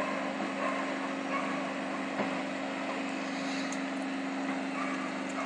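Steady low drone of vehicle engines running, with a single knock about two seconds in.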